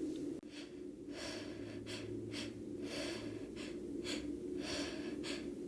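A woman's sneeze build-up: quick, repeated gasping breaths, about two a second, as a sneeze is coming on.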